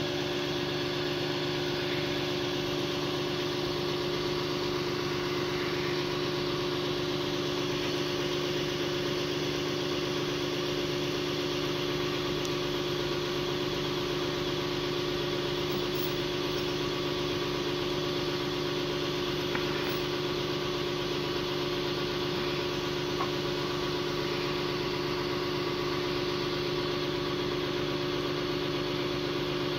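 A truck engine idling steadily with an even, unchanging hum.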